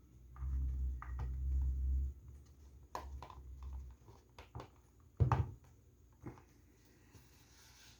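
Handling noise from unboxing a boxed figure: low bumping and rubbing for the first two seconds, then a scatter of light clicks and knocks, the loudest just past five seconds in.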